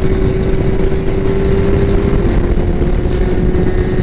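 Yamaha R1 1000cc inline-four motorcycle engine holding a steady note while cruising, its pitch dipping slightly about halfway through, under a heavy low rush of wind noise on the microphone.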